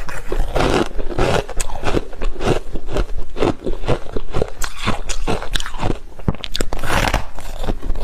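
Close-up chewing and crunching of freezer frost: soft ice crunching between the teeth in a dense, continuous run of small crunches.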